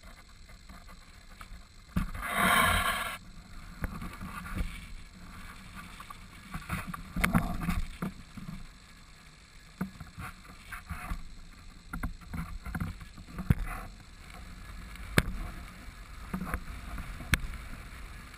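Wind and surf noise picked up by a GoPro in its housing on a windsurf boom, with scattered knocks from the rig being handled. A loud rush of noise comes about two seconds in.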